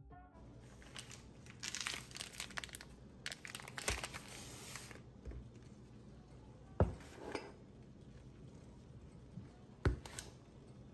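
Crinkling of packaging being handled, in two spells over about three seconds, then two sharp knocks a few seconds apart.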